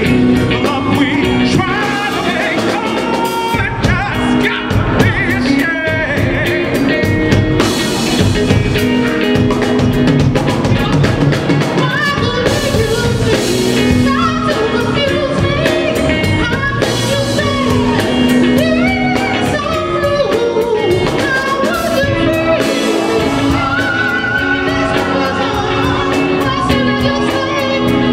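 Live soul music: a band with drums and other instruments playing under group vocals, continuously.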